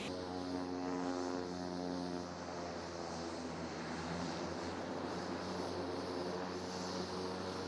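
MQ-9 Reaper's turboprop engine and pusher propeller running with a steady droning hum.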